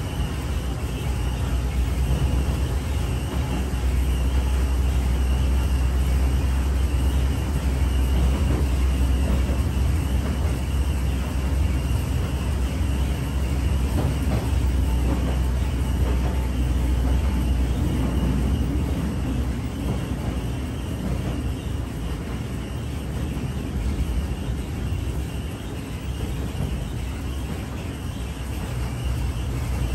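Open sightseeing rail cart running through a railway tunnel: a steady engine drone and a low rumble of wheels on the rails, echoing off the tunnel walls. The sound grows a little louder after a couple of seconds and eases off somewhat near the end.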